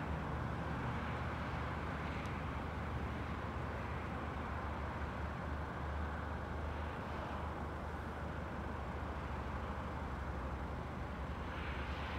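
Steady outdoor road-traffic noise: a low rumble with a hiss above it, swelling slightly near the end.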